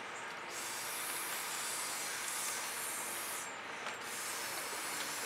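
Breath blown through a drinking straw onto wet poured acrylic paint: a steady airy hiss in two long blows, with a short pause just before the four-second mark.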